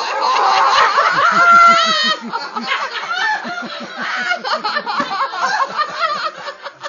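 An audience of party guests laughing together, many overlapping giggles and chuckles, loudest in the first two seconds and carrying on more lightly after that.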